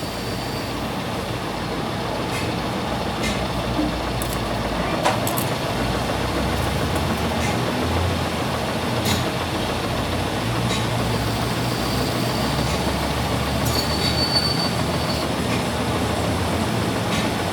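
Heavy workshop machinery running steadily, a continuous rumble with a low hum, scattered sharp clicks and a brief high squeal about fourteen seconds in.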